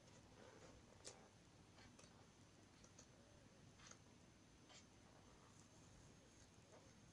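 Faint sounds of a large hardback book's pages being turned by hand: a few soft, brief paper ticks and flaps at irregular intervals over a very quiet room.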